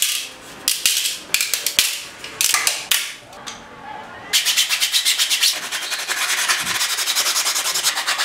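Sandpaper rubbed by hand over a 3D-printed plastic figure: a few short scrapes at first, then from about halfway a steady run of quick back-and-forth strokes, several a second.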